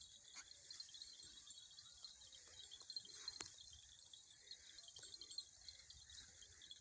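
Faint, steady chirring of insects, a continuous high-pitched pulsing chorus, with a few faint clicks.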